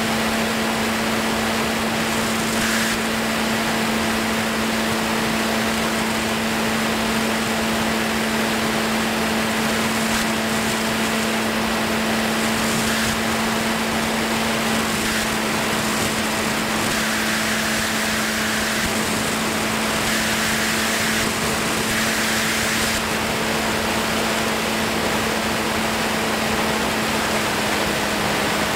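Steady rush of air over the microphone in flight, with a constant low hum underneath and a few short swells of hiss in the second half.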